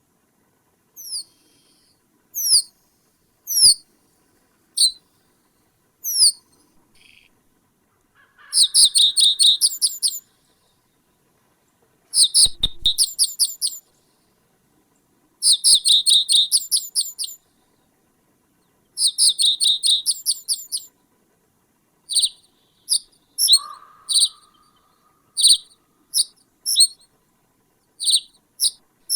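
Bird song: single sharp, high-pitched notes a second or so apart, then four fast trilled phrases of about two seconds each, then a run of quick separate notes near the end.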